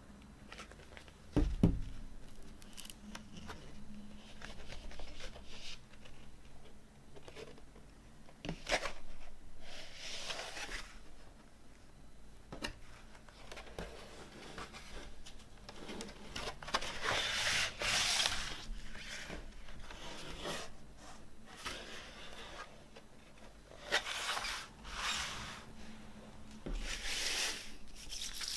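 Hands handling a vinyl record's packaging: rustling, sliding and scraping of cardboard and paper or plastic sleeves in several stretches, with a single thump about a second and a half in.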